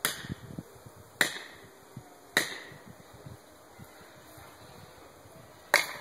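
Hammer blows driving a felling wedge into the cut of a back-leaning tree: four sharp strikes, each with a short ring, three about a second apart and the last near the end.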